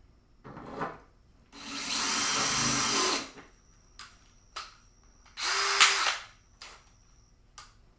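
Power drill driving screws, in three runs: a brief one, a longer one of about a second and a half, and another of under a second, with small clicks and taps of handling between them.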